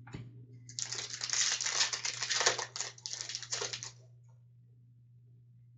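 Wrapper of a Fleer Ultra hockey card pack crinkling as it is torn open and pulled off the cards, for about three seconds, over a faint steady low hum.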